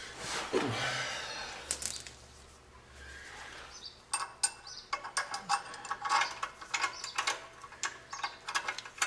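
A steel U-bolt exhaust clamp being fitted over a muffler pipe joint by hand. A soft scrape comes first, then from about four seconds in a run of quick, light metallic clicks and rattles as the clamp and its nuts are worked into place.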